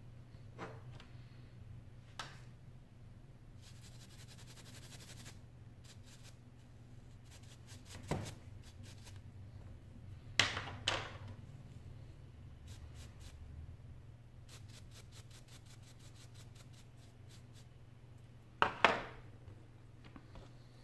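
Small iPhone 6 parts and tools handled on a work mat: light scraping and runs of faint ticks, with a few sharp clicks or taps, two close together about ten seconds in and two more near the end, over a steady low hum.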